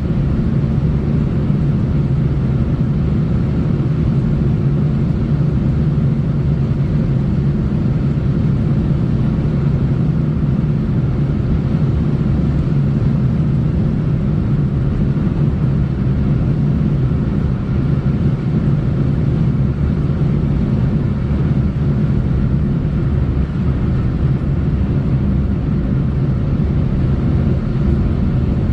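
Steady low rumble of a vehicle driving along a road, tyre and road noise with engine drone, unchanging throughout.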